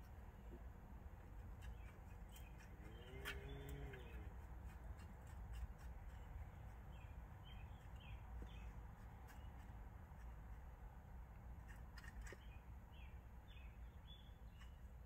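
Near silence: a faint steady low rumble, with scattered faint clicks and a few faint, short, high chirps.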